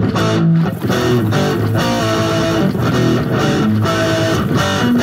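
Live band music led by an amplified guitar played flat across the body, some of its notes bending and wavering.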